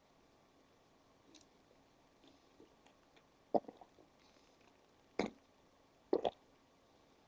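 A few brief, quiet clicks and gulps from a person's mouth and throat, three short ones spaced about a second apart in the second half.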